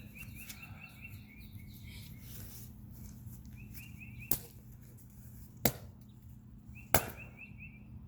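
Three sharp whacks of a stick striking a styrofoam model airplane, about a second and a half apart.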